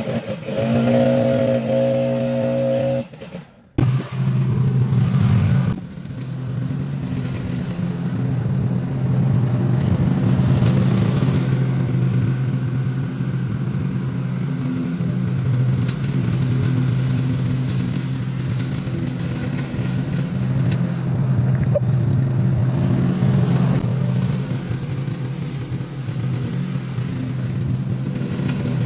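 Toro TimeCutter zero-turn mower's engine running steadily. Music plays for the first three seconds and cuts off just before the engine comes in.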